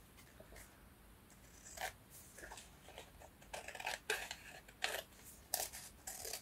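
Scissors cutting paper: a run of short, irregular snips, starting about two seconds in.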